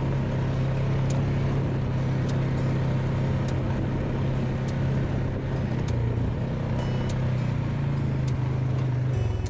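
ATV engine running steadily under way on a sand and dirt trail, with a constant drone and scattered light clicks. The engine note dips briefly near the end.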